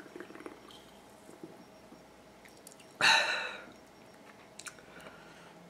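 A person gulping a drink from a can, with small wet swallowing clicks. About three seconds in comes one sudden loud breathy exhale that fades over about a second.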